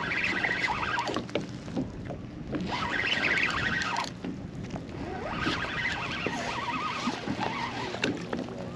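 Water splashing and sloshing beside a small boat, in three stretches, over a low steady background.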